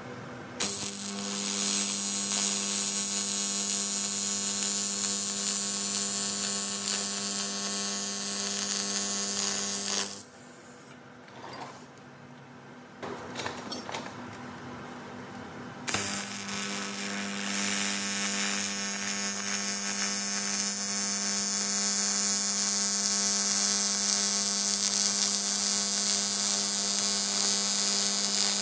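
AC TIG welding arc on an aluminium exhaust pipe: a steady electric buzz with a hiss over it. It runs for about ten seconds, stops, and a second run starts about sixteen seconds in.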